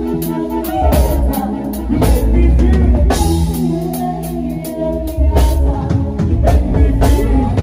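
Live band playing loudly: a drum kit with bass drum and snare keeping a steady beat under an electric bass guitar and held keyboard notes.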